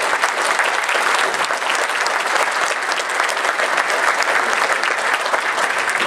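Audience applauding, with dense, steady clapping from many hands.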